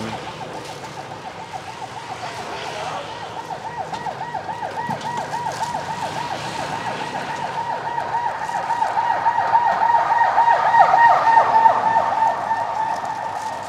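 Emergency vehicle siren in a fast yelp, wavering up and down several times a second. It grows louder, peaks about eleven seconds in, then fades as the vehicle passes.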